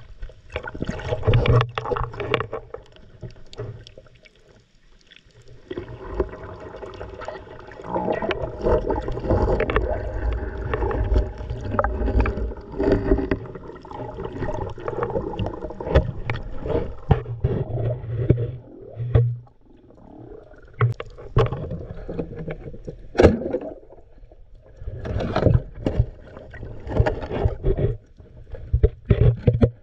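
Muffled underwater sound while swimming over a shallow rocky bottom: water sloshing and gurgling past the camera, with a low rumble and scattered clicks and knocks.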